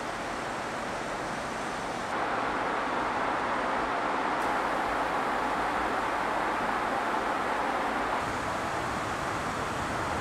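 Steady rushing road and tyre noise of a car driving through a tunnel, with no engine note standing out; it steps up louder about two seconds in.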